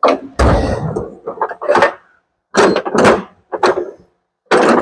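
Small pry bar working a snowblower subframe against its tractor mount: a run of about five loud metal clanks and scrapes, each lasting a fraction of a second, as the frame is levered back.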